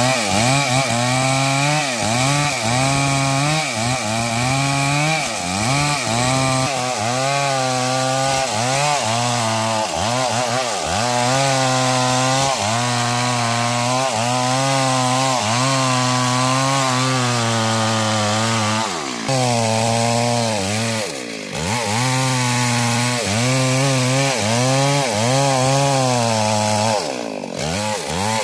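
Stihl MS 382 two-stroke chainsaw cutting through a mahogany trunk at full throttle during the felling back cut, its engine pitch dipping and recovering over and over as the chain bogs in the wood. A couple of brief throttle drops come past the middle and again near the end.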